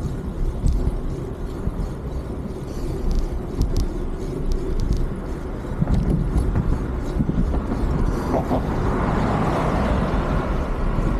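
Wind buffeting the microphone of a moving bicycle along with tyre rumble, broken by occasional clicks and rattles. A broader rushing noise swells from about eight seconds in.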